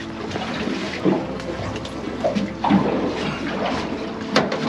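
Water splashing and sloshing around a freshly landed snapper in a wet landing net, with a sharp knock near the end.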